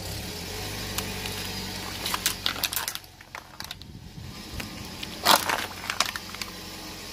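Car tyre crushing a plastic cup of red slush with ice and a foil tray of jelly: a run of crackling and crunching about two seconds in, and one loud sharp crack a little past five seconds. A low steady engine hum lies underneath.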